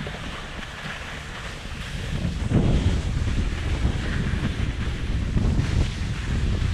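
Wind buffeting a GoPro Hero 7 Black's microphone, a steady low rumble that gets louder about two and a half seconds in, as from skiing downhill at speed.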